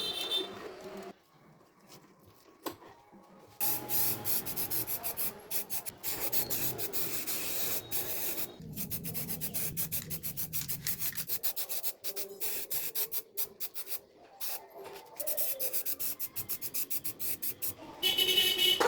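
Quick back-and-forth hand rubbing strokes on a part of a small 12V desk fan, about four a second, starting a few seconds in and breaking off briefly near the middle.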